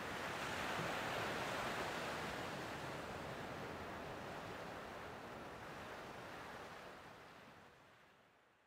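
Ocean surf washing steadily as an even hiss, fading out gradually over the last couple of seconds.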